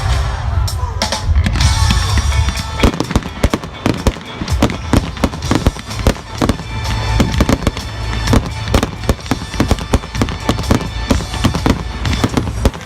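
Fireworks display at full pace: a rapid, continuous barrage of bangs and crackles, some hits louder than others, with music playing underneath.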